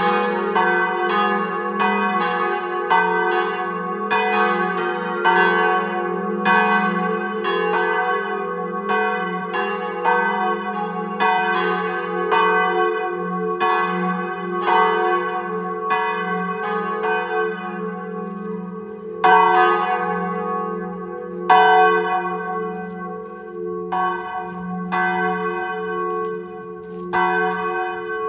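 A peal of four church bells, cast by Giovanni Colbacchini of Trento in 1925 and 1931, swinging and ringing together, with a quick, regular run of strikes over a steady hum. From a little past halfway the strikes come fewer and less evenly, as the bells slow toward the end of the ringing.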